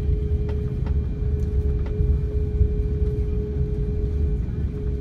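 Cabin noise of an Airbus A340-600 taxiing after landing: a steady low rumble with a constant hum and a few faint clicks.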